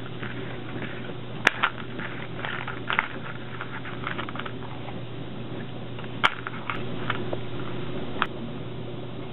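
Pleated bellows fabric being handled and shifted on a sewing machine bed: light rustling and scraping, with a few sharp clicks, the loudest about a second and a half in and again past six seconds. A steady low hum runs underneath.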